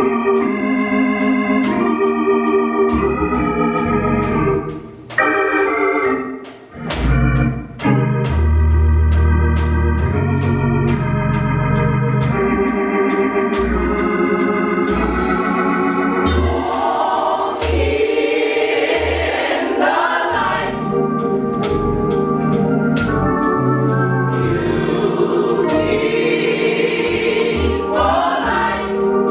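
Live gospel choir song opening on organ chords over drums and bass, with voices joining in partway through.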